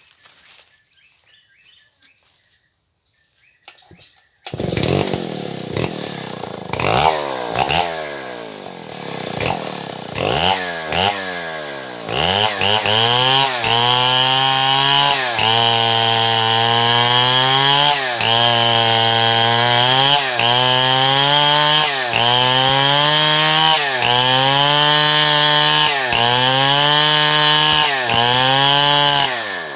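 Stihl MS070 two-stroke chainsaw. It comes in about four and a half seconds in and revs up and down several times. From about twelve seconds it runs at high revs, with a brief dip in speed roughly every two seconds.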